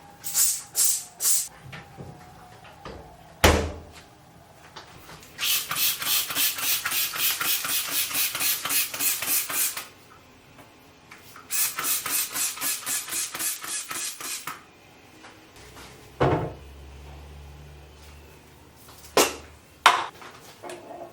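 Three quick squirts from a spray bottle, then two long spells of fast, rhythmic scrubbing strokes, about five a second, with a few knocks between and after.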